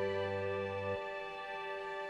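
Slow, soft background music of held chords; the low bass notes drop out about a second in.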